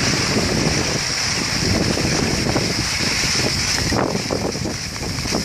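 Wind buffeting the microphone while skiing downhill, over the scraping hiss of skis sliding on packed snow.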